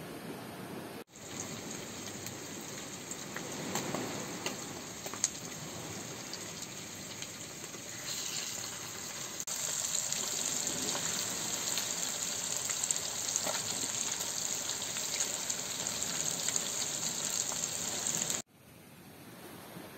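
Battered pieces of food frying in hot oil in a pan on a portable gas stove: a steady, high sizzle with scattered crackles. It cuts in abruptly about a second in, grows louder about halfway, and stops abruptly near the end.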